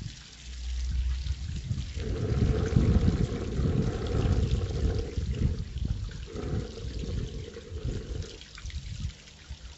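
Wind gusting on the microphone, with a low rumble about a second in and a longer stretch of gusts that eases near the end. Under it are trickling water and bacon and onions sizzling in butter in a frying pan.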